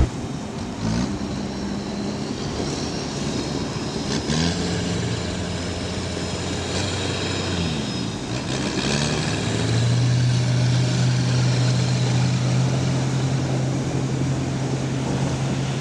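Sherp amphibious ATV engines running, rising and falling in pitch several times as a Sherp drives through water and broken river ice. From about ten seconds in, a steadier, louder engine note holds.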